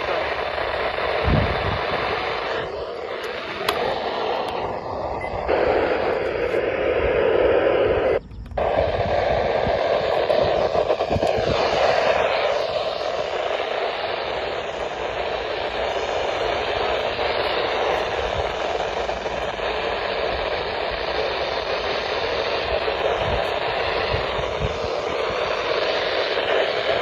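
Radio static: a steady hiss from a weakly received radio station, dropping out briefly about eight seconds in.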